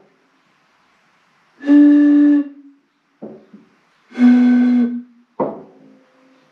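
Two breathy, hooting notes blown across the mouths of glass bottles partly filled with water, each under a second long; the second note is lower than the first, because its bottle has more air above the water. Short knocks of the glass bottles being picked up and set down come between the notes.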